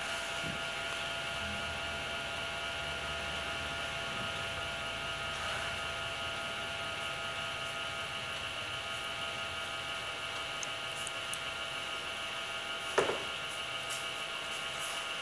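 Steady background hum and hiss of the recording with several faint steady tones underneath, the typical electrical and fan noise of a computer setup picked up by the microphone. A single brief click about 13 seconds in.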